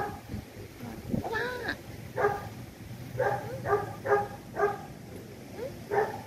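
An animal giving short, repeated calls, a run of them about two a second from about two seconds in, with a rising-then-falling whine about a second in.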